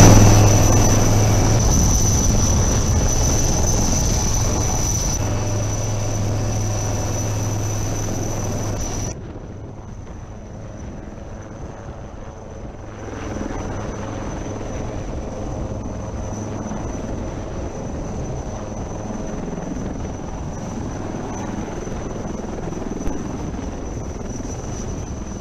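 Helicopter rotor and turbine running, with a steady high whine. It is loud and close from inside the cabin at first. After a sudden change about nine seconds in it is a helicopter hovering overhead, quieter at first and growing louder again a few seconds later.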